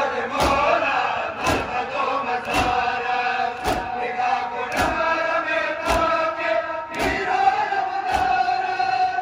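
A crowd of men chanting a mourning chant (nauha) in unison, with a sharp beat about once a second keeping time.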